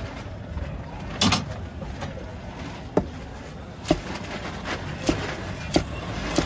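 A large knife chopping a seer fish into steaks on a wooden chopping block. Each stroke ends in a sharp knock on the wood, about seven strokes, coming closer together toward the end, over a steady low background rumble.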